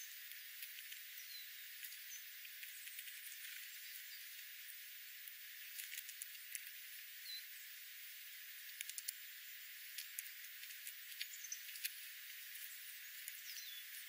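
Birds feeding on seed scattered over gravel: scattered small ticks and taps of pecking over a faint steady hiss, with a few brief high chirps.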